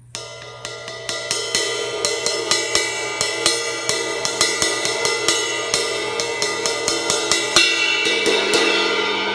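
Cracked Zildjian K 18-inch ride cymbal, with about five cracks along its edge, struck over and over at roughly three hits a second. The strikes build into a ringing wash that slowly gets louder, with the hardest hit about seven and a half seconds in.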